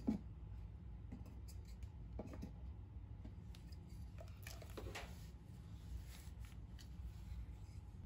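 Light knocks and taps of plywood pieces being handled and set against a small plywood birdhouse, a few scattered ones with the clearest at the start, over a steady low hum.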